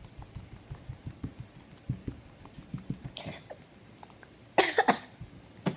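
Crunchy slime with foam beads being squeezed and stretched by hand: a run of small soft crackles and squelches. A short cough comes near the end.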